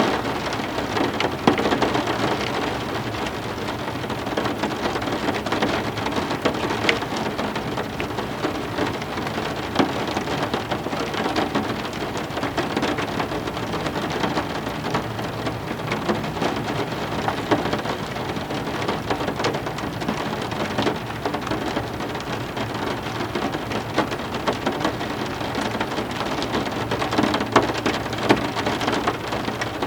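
Steady heavy rain, a dense even wash of drops splashing on a surface with many small sharp patters.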